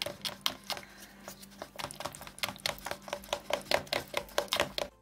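Pink plastic spatula stirring and scraping thick hair-dye cream against the sides of a plastic bowl: a fast, uneven run of clicks and scrapes, several a second.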